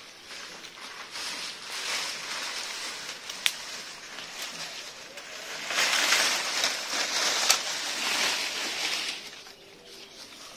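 Dry banana leaves and brush crackling and rustling as they are pulled apart by hand. The sound is loudest about six to nine seconds in, with two sharp snaps.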